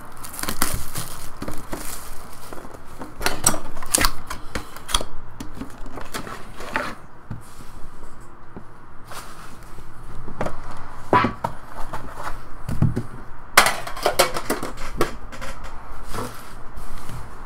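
Cardboard and shrink-wrap plastic being handled: crinkling, rustling and scattered taps and knocks as a sealed trading-card box is opened and a metal tin and wrapped box are set down on a table. The densest crinkling comes about two thirds of the way in.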